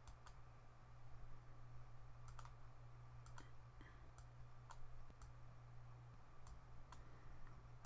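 Faint computer mouse clicks, about eight scattered through several seconds, over a low steady hum.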